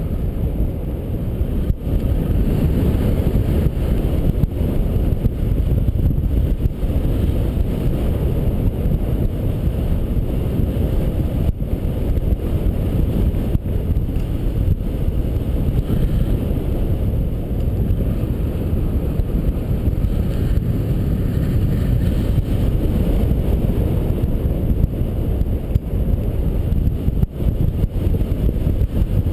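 Steady rush of airflow buffeting the camera's microphone as a paraglider flies, a loud low rumble that varies only slightly.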